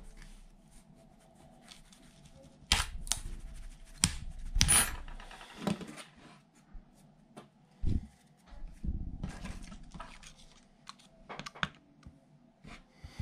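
Clicks, taps and knocks of wood-PLA 3D-printed meeples and their printed raft being handled and pried on a glass build plate, over a faint steady hum.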